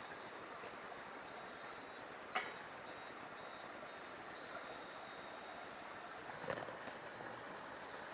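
Steady outdoor background hiss with a broken high-pitched chirring, and two sharp clicks, one about two seconds in and one about six and a half seconds in.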